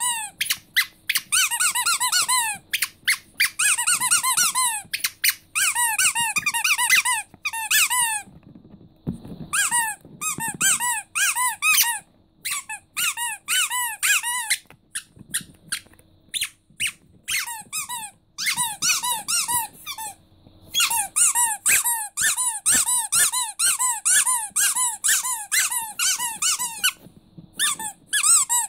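Rubber squeaky toys squeezed by hand in quick runs of squeaks, several a second, with short pauses between runs. Each squeak is a brief whistle-like note that rises and falls in pitch. A rubber starfish toy is squeezed first, then a second rubber toy near the end.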